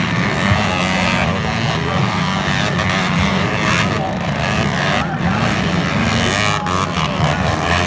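Several motocross dirt bikes racing, their engines revving up and down in an overlapping buzz.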